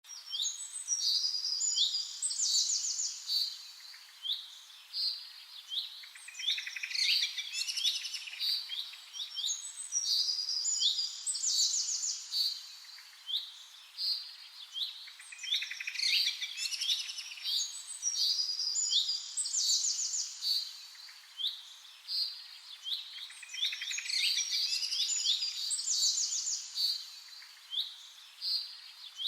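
Small birds singing and chirping together: high, quick chirps and trills that come in busy bursts every four or five seconds, with quieter chirping between them.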